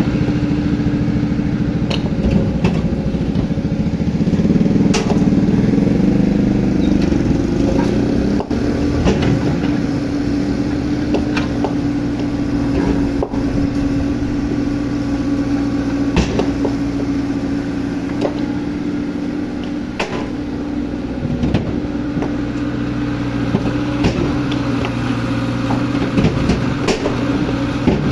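Excavator's diesel engine running steadily. It swells under load a few seconds in, and scattered sharp clanks sound over it.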